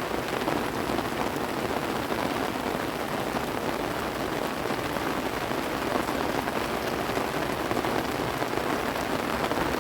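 Steady rainfall, a dense, even hiss of many drops striking.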